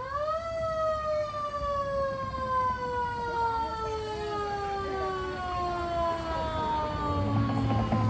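A vehicle siren winds up quickly, then winds down in one long, slow, steady fall in pitch. A low steady tone joins near the end.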